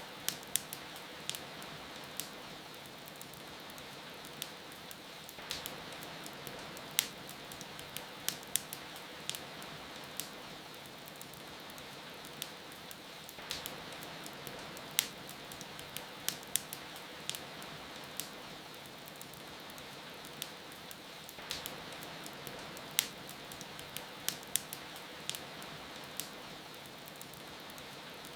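Steady rain hiss with irregular sharp crackles and pops from a wood fire.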